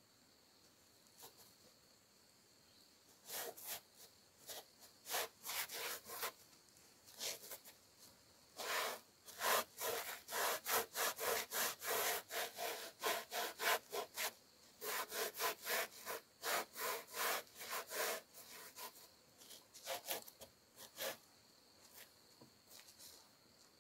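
Socked feet rubbing and scuffing on the weathered wooden planks of a picnic bench: a run of short scrapes, up to about two a second, that starts a few seconds in and dies away near the end.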